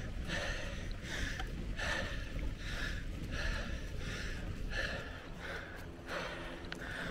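A cyclist breathing hard in a steady rhythm, about three breaths every two seconds, over a low rumble of riding on the microphone.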